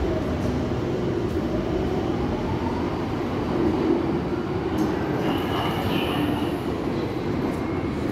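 Berlin U-Bahn train running through an underground station, with a steady rumble. Over the first two seconds or so a whine rises in pitch as the train gathers speed. About five to six seconds in there is a faint high squeal.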